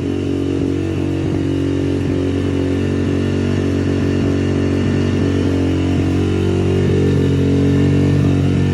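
A 140cc single-cylinder dirt bike engine idling high and steady, its idle set faster than it should be.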